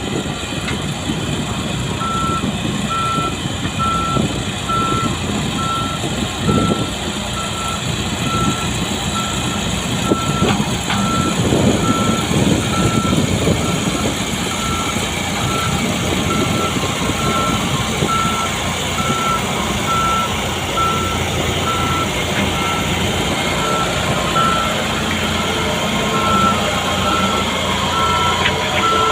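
Skid steer with a vibratory roller attachment working, its engine running with a low rumble. From about two seconds in, a backup alarm beeps at an even pace.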